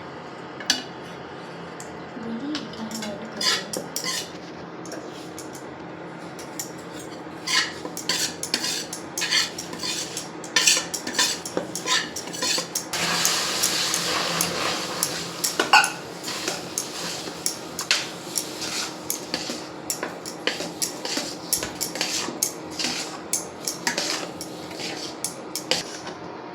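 Metal spoon clinking and scraping against metal cookware while stirring, in many short irregular clinks. About halfway through comes a few seconds of continuous scraping.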